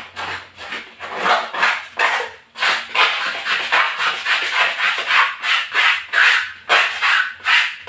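Ceramic floor tiles being scrubbed by hand in quick back-and-forth strokes, about three rasping strokes a second, to work off hardened cement residue.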